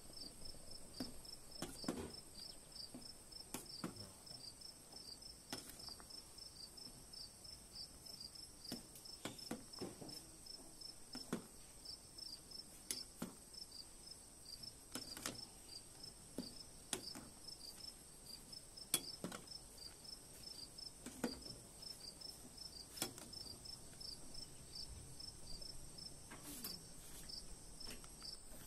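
Insects chirping in a steady, even pulse of about two chirps a second over a constant high buzz. A metal ladle now and then knocks and scrapes against the stainless steel pot as the simmering mushroom curry is stirred.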